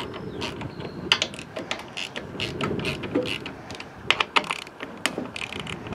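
Ratchet wrench clicking in short, irregular runs as it backs out the 10 mm bolts holding the air filter housing, mixed with small metallic ticks of the tool and bolts being handled.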